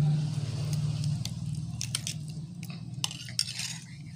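A spoon stirring and mashing lumps of cooked rice-flour paste into water in a metal bowl, making wet squelching sounds with scattered clicks of the spoon, over a steady low hum. The paste is being dissolved for appam batter.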